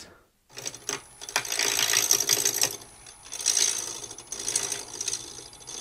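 Wood lathe running with a steady whine while a turning tool cuts the tenon on a small spinning blank of dense exotic hardwood. The cutting is a rough scraping noise that comes and goes in bouts of a second or so. The whine starts about half a second in.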